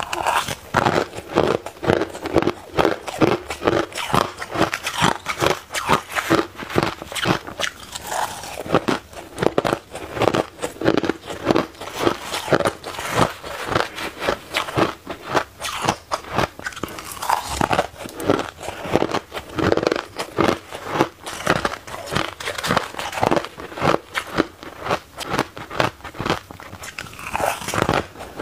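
A person biting and chewing mouthfuls of dry, crunchy shaved ice with red ice cubes, close to a clip-on microphone: a dense run of crisp crunches, several a second.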